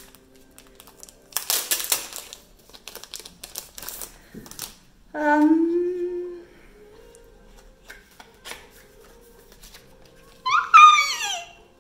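Hands unwrapping and handling a pack of mini photo cards: a burst of plastic wrapper rustling about a second in, then scattered light clicks and taps. A short low hum comes about five seconds in, and a brief high-pitched squeal falling in pitch comes near the end.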